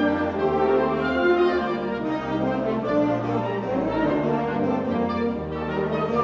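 Symphonic wind band playing, with brass and woodwinds together in held, overlapping notes.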